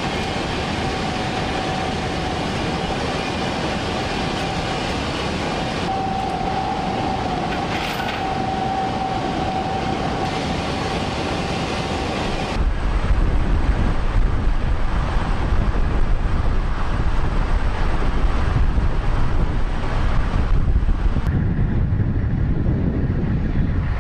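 Military vehicle running: a steady drive noise with a high steady whine, changing abruptly about halfway through to a louder, deeper rumble.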